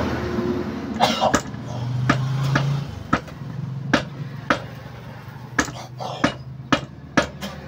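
Small hammer tapping on a Honda TMX 125 engine's casing during an overhaul: about a dozen sharp, irregular metal taps, some in quick pairs.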